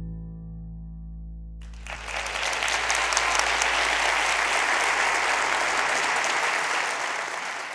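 Music of long held tones that stops about one and a half seconds in, followed by an audience applauding, the applause fading away near the end.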